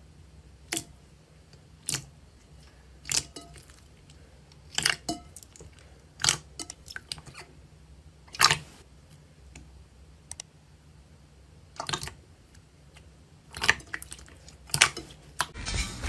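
Slime being squeezed and pressed by hand, giving short, sharp pops and crackles at irregular intervals of one to two seconds.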